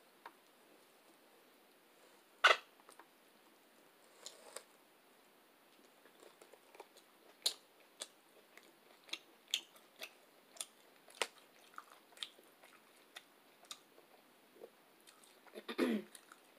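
Close-miked chewing of Ethiopian food, with irregular short wet mouth clicks and smacks. A longer, louder sound comes near the end.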